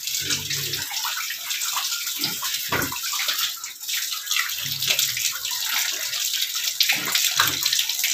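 Water running from a hose and splashing as a sow drinks straight from the stream.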